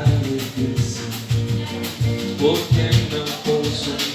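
A live band playing Latin American-style music. The bass pulses to a steady beat under quick, light percussion, with sustained instrumental notes on top.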